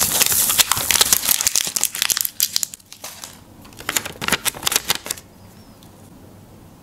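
Crinkling and rustling of a homemade paper sticker being peeled from its backing and handled, dense for the first two seconds, then a second bout of crackles about four seconds in as it is laid and pressed onto a notebook page; it stops about five seconds in.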